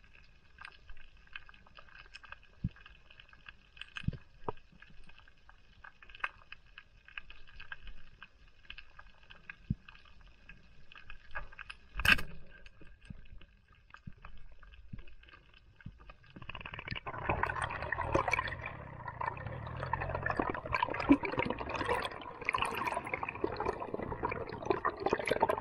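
Underwater reef sound with faint scattered clicks and crackle, then a single sharp snap about twelve seconds in as a speargun is fired at a rabbitfish. From about sixteen seconds on, loud rushing and bubbling water takes over.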